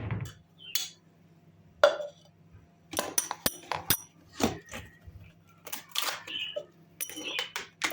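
Objects being handled: a string of about a dozen short taps, knocks and clinks with brief pauses between them.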